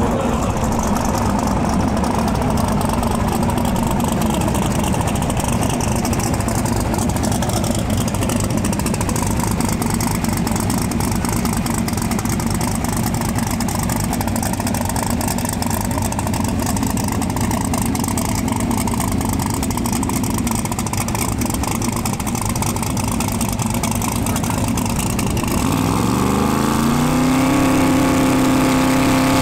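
Twin-turbo Pro Mod drag car engine running loudly at low revs, then, about 26 seconds in, revving up and holding at a steady higher pitch while staged before the launch.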